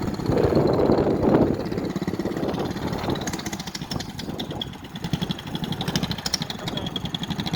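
A small engine running hard with rapid, even firing pulses. It swells about half a second in, eases off around five seconds, then picks up again, while it is being run to try to blow it up.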